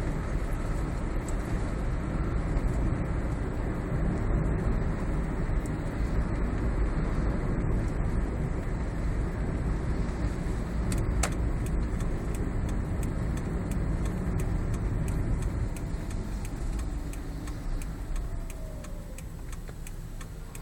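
Toyota Prius cabin noise while moving: a steady low rumble with scattered short clicks, more frequent in the second half and one sharper click about eleven seconds in. The clicks are the kind of rattle the owner is chasing from beneath the instrument panel. The rumble eases off over the last few seconds.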